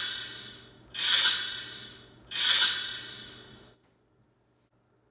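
Spirit box app sweeping audio: three bursts of hissing static, about 1.4 s apart, each cutting in sharply and fading away. The sound stops short a little before four seconds in.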